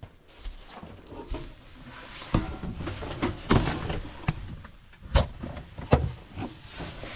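A cupboard door opening, then knocks, clicks and rustling as gloved hands reach in among the pipes and hoses inside; a sharp knock about five seconds in is the loudest.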